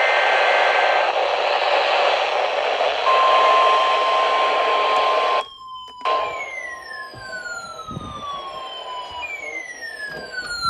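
Weather radio receiver audio. Static hiss carries two steady digital data tones that stop about a second in, then a steady single-pitch alert tone comes in about three seconds in. After a short cut to silence, two long siren-like falling tones each slide down over about three seconds above a steady tone.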